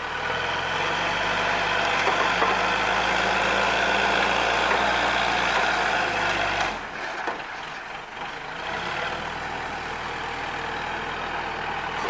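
Diesel engine of a heavy earthmoving machine running steadily. About seven seconds in it dies away, and it picks back up more quietly a couple of seconds later.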